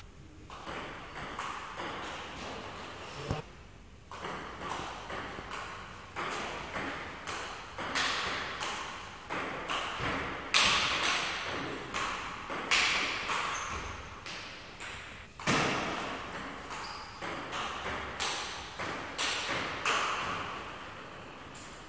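Table tennis rally: the ball cracking off the paddles and bouncing on the table in a steady run of sharp knocks, each one ringing out in the echoing hall.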